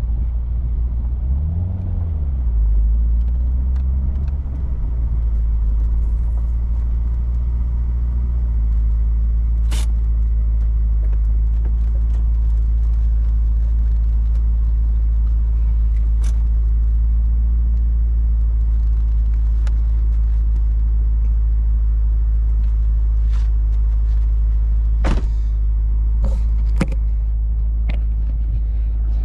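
Chevrolet Corvette C5's V8 running under way with a manual gearbox: the engine note rises and falls a couple of seconds in, then holds a steady low drone. A few sharp clicks sound over it in the second half.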